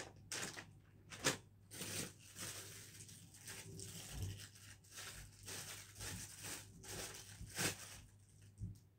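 Plastic packaging rustling and crinkling as it is handled and opened, with short tearing sounds and sharper crackles about a second in and near the end.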